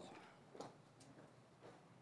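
Near silence: quiet room tone with a few faint footsteps.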